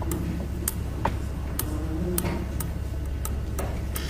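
Steady low electrical hum of a courtroom microphone feed, with about eight faint, irregular clicks and ticks, such as paper or small movements near the microphones.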